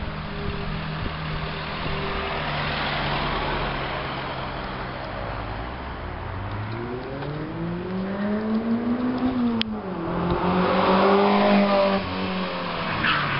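Toyota MR2 SW20 2.0 GTi's four-cylinder engine and exhaust, running steadily, then revved up twice: the pitch climbs and falls about nine seconds in, then rises again and holds briefly before dropping back near the end. A single sharp click comes just after the first rev.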